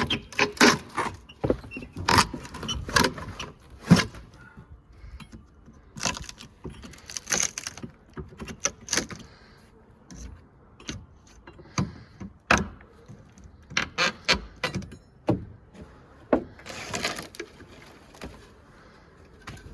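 Irregular knocks, rattles and scraping as rotten wall sheathing and framing are pried and pulled apart by hand, with bits of debris clattering. The knocks come thickest in the first few seconds, with short scraping bursts later on.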